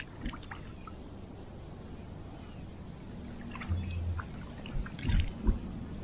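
Lake water being scooped and splashed by hand at the shoreline, with scattered small splashes and drips over a steady low background rush. Two louder low thumps come about five seconds in.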